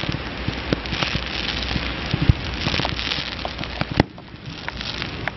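Aerial fireworks going off: a dense crackle and hiss of bursting shells and falling sparks. Sharper bangs stand out a little over two seconds in and again about four seconds in.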